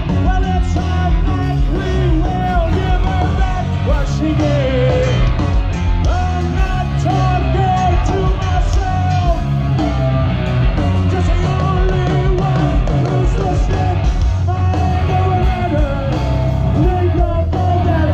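Rock band playing live at full volume through a festival PA, with singing over guitars, bass and drums, heard from within the crowd in front of the stage.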